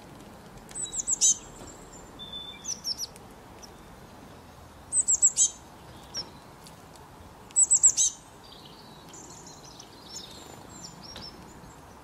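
Small songbird chirping: four short bursts of quick, high, falling chirps, three to five notes each, with a few fainter calls near the end.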